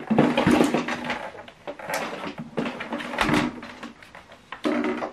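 Handling noise as a soundbar is turned and slid over a tabletop: rubbing and scraping, with a couple of sharp knocks about two and three seconds in.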